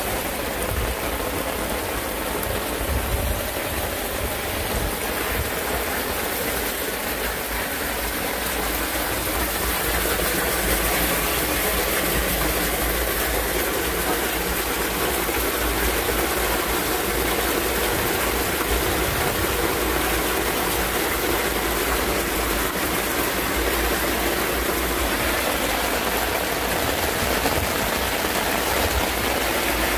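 Torrential rain falling, with water rushing through the drainage system: a steady wash of noise that holds level throughout.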